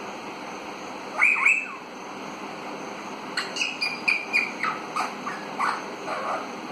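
Young Alexandrine parakeet calling: one louder gliding call about a second in, then a string of short, high chirps and whistles.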